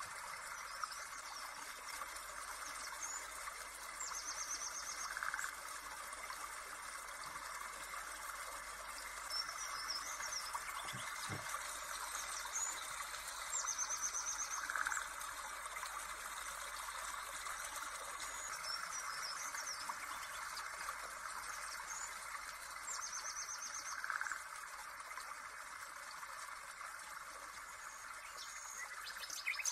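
Birds chirping in short phrases over a steady hiss. The pattern repeats about every nine to ten seconds, as a looped nature-ambience track would.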